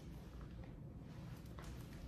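Quiet room tone with a steady low hum, and a few soft rustles of clothing and movement as a person turns in place.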